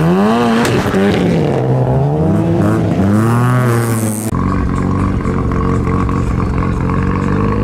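Mazda RX-7 rotary engine revving as the car pulls away: the revs climb sharply, drop, climb again and fall back. Then, after a cut about halfway through, another RX-7's rotary engine running steadily at idle.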